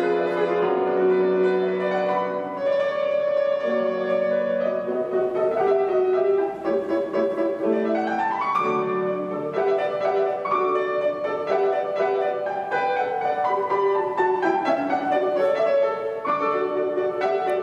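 Solo piano playing a classical piece, with a quick rising run about eight seconds in.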